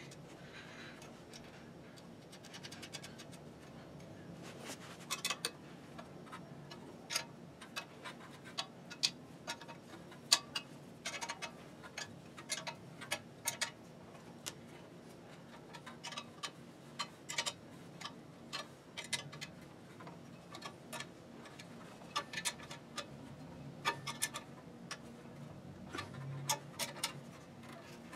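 Irregular small metallic clicks and taps as a steel angle-iron extension is fitted onto a clutch motor's lever and fastened with small 1/4-inch bolts and nuts turned by hand. There is a quick run of fine clicks about two seconds in.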